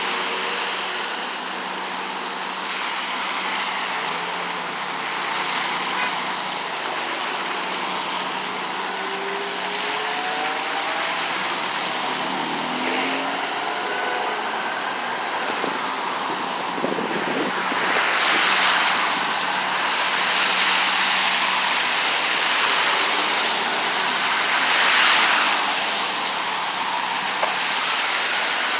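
Road traffic passing on a busy connector road: a steady hiss of tyres and engines, with several louder vehicles going by in the second half.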